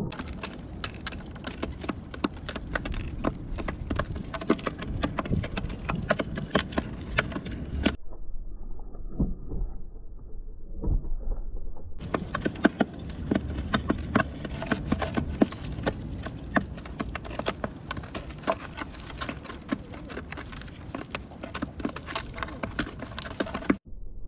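Feral pigeons pecking sunflower seeds and bread on a wooden feeder tray close to the microphone: rapid, irregular taps and clicks of beaks and feet on the wood and seed husks. The sound is duller for a few seconds in the middle.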